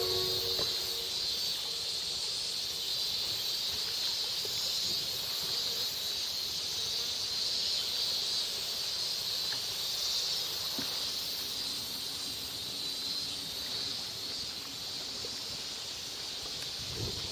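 Steady high-pitched shrilling of summer insects, with the last notes of an outdoor public-address loudspeaker chime dying away in the first second.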